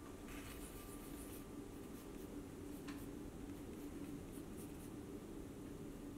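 Graphite pencil scratching on sketchbook paper in a few short strokes as a small shape is drawn, faint over a steady low hum.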